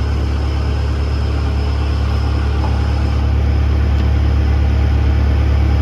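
A vehicle engine idling steadily, a constant low drone with no change in speed.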